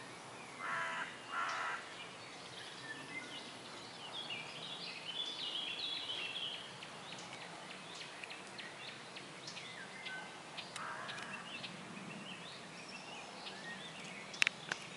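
Wild birds calling: two short, loud calls about a second in and another around eleven seconds in, with a small bird singing quick high notes in between. A sharp click near the end.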